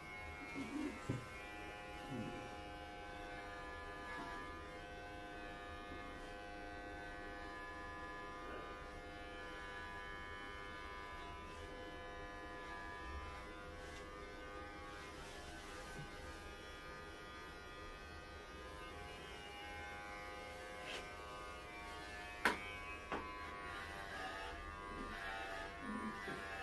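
Electric pet hair clippers running with a steady buzzing hum while shaving a dog's coat. A few small knocks come in the first couple of seconds, and one sharp click late on.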